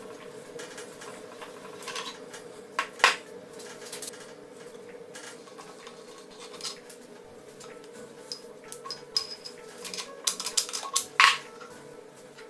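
Metal parts clinking and knocking as they are handled, in sharp separate strikes with a brief cluster near the end, over a steady hum.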